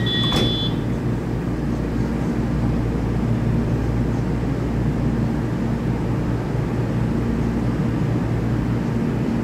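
Taiwan Railway EMU3000 electric train standing at an underground platform, with a sharp knock about half a second in as its doors shut at the end of the door-closing chime. Then a steady low hum and rumble from the waiting train.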